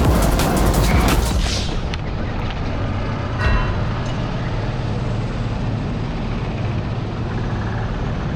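Go-kart running on a race track, heard from an onboard camera: clattering and rattling for the first second and a half, then a steady rumble with a brief pitched blip about three and a half seconds in.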